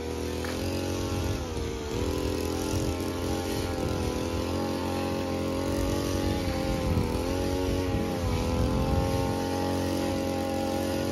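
A motor vehicle's engine running steadily at a near-constant speed, its pitch dipping slightly a few times.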